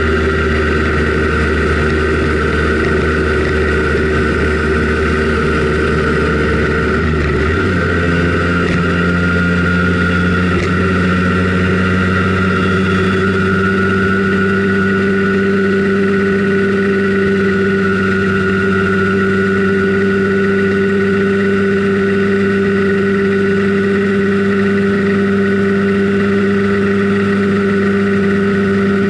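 Simson Schwalbe KR51/2 scooter's single-cylinder 50 cc two-stroke engine running under way, heard from on board. Its note changes abruptly about seven seconds in, then holds steady.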